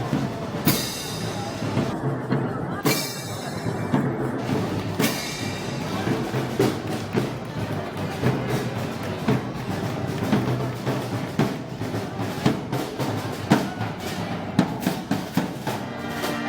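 Festival band music driven by heavy drums and percussion, with frequent sharp drum strikes over a dense lower band sound.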